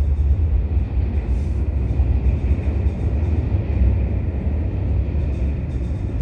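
Freight cars of a manifest train rolling past: a steady heavy rumble of steel wheels on rail, with a faint steady high tone above it.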